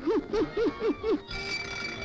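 Five short pitched notes, each rising and falling. Just over a second in, a wind-up music box starts playing its tune in many ringing tones.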